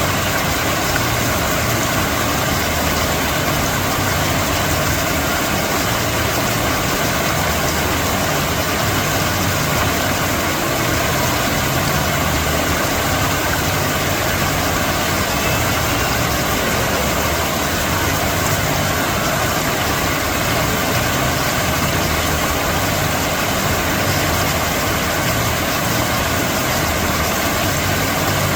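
Water fountain splashing in a steady, unbroken rush of water noise.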